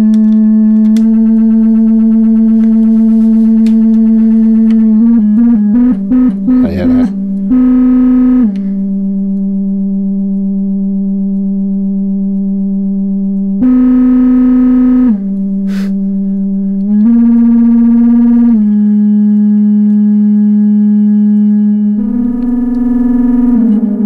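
EMS Synthi VCS-3 analogue synthesizer sounding a held, overtone-rich drone whose pitch jumps up and down between a few notes as its oscillators are retuned. About five seconds in the tone breaks into a fast stutter for a couple of seconds before settling again.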